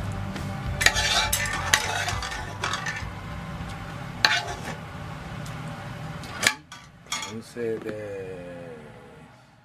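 Metal spoon scraping and clinking against a ceramic plate while scooping stir-fried lettuce and minced meat, with several sharp clinks over a steady low background hum. Near the end the clinks stop and the sound fades out.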